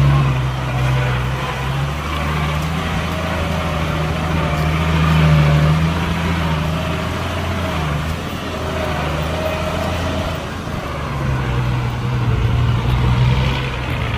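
Heavy diesel engine of an earthmoving machine running steadily, its pitch rising and falling as the load and revs change.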